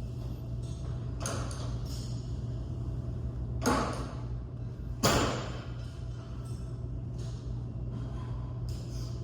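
Two sharp thuds about a second and a half apart, with a fainter knock before them, over a steady low hum.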